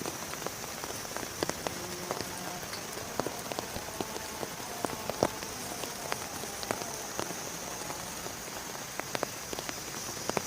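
Steady rain, with individual drops striking a surface as sharp, irregular taps over a constant hiss.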